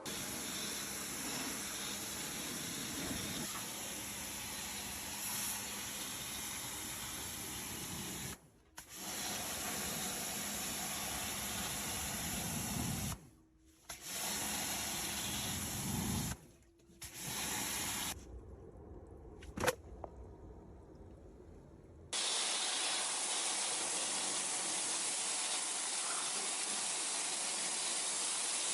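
Pressure washer (jet wash) spraying water at the silt-caked carpet inside a flooded car, a steady hiss of spray. It cuts off briefly three times and goes quieter for a few seconds, then comes back as a steady hiss.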